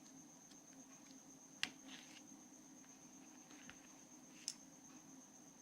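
Near silence with a faint steady high whine and low hum, broken by a few small handling clicks. The sharpest click is about a second and a half in, and another comes near the end.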